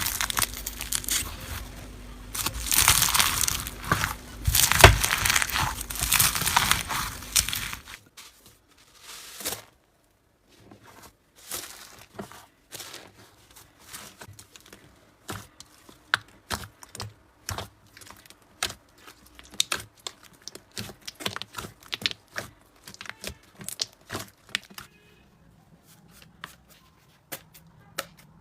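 Slime being squeezed and worked by hand: dense crinkly crunching for about the first eight seconds, then it changes abruptly to softer, scattered clicks and pops.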